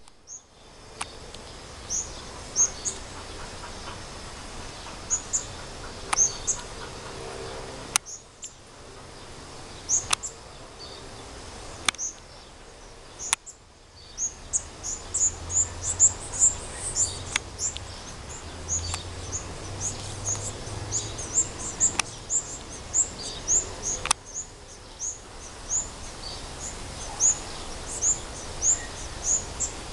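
Small songbirds chirping with short, high notes, a few scattered ones at first, then coming thick and fast, several a second, from about halfway through. A few sharp clicks sound here and there.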